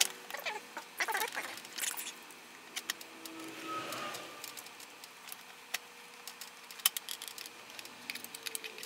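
Scattered light clicks and taps of hands handling parts and wiring on a 3D printer frame.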